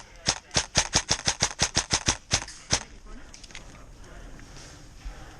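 Airsoft gun firing a quick string of about fifteen sharp shots, roughly six a second, for nearly three seconds, followed by a few fainter shots.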